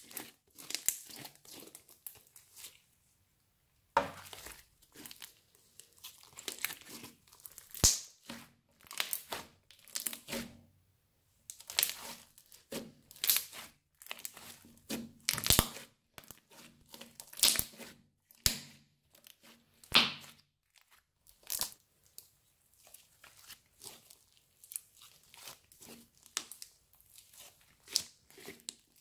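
Crunchy slime being squeezed and worked by hand, giving irregular crackles and pops, with a short pause a few seconds in.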